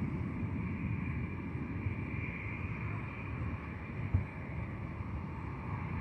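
Wind rumbling on the microphone over a faint, steady hum of distant jet engines, with one short thump about four seconds in.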